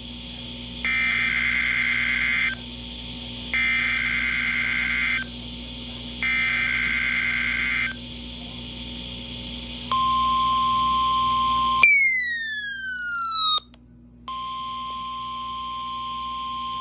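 NOAA Weather Radio SAME digital alert header: three raspy, warbling data bursts of about a second and a half each, about a second apart, marking the weekly test. Then comes a steady single-pitch tone. Near two-thirds of the way through it is broken by a falling swept tone and a brief gap, after which the steady tone resumes.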